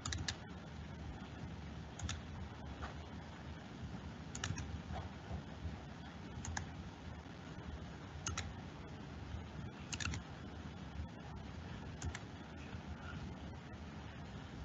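Sparse, sharp clicks from working a computer, about one every two seconds, over a low steady room noise.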